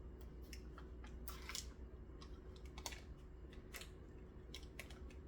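Scattered light clicks and taps at irregular intervals, with a brief scrape about a second and a half in, over a steady low hum.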